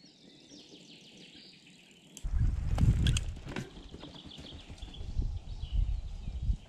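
Mountain bike riding past close to the ground, tyres rolling over grass and bumpy ground with rattles and clicks from the bike. It comes in suddenly about two seconds in, is loudest soon after, then drops back as the bike rides away. Before the bike arrives, birds chirp faintly.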